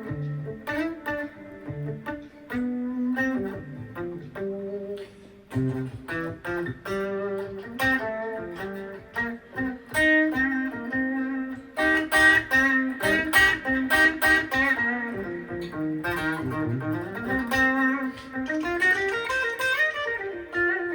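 Gibson ES-335 semi-hollow electric guitar played through an amp on its bridge pickup: a picked single-note melody mixed with chords, climbing in a rising run near the end.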